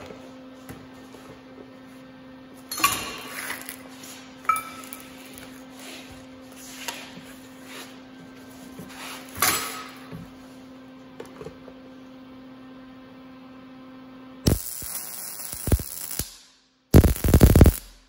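Steady electrical hum with a few knocks of the welding gun and work being handled, then near the end short bursts of MIG welding arc crackle as drilled holes in a D1-6 camlock lathe spindle nose are welded up.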